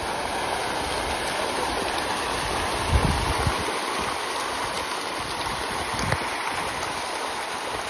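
A dense school of fish thrashing at the surface in a feeding frenzy: a steady churning splash of water, with heavier splashes about three seconds in and again about six seconds in.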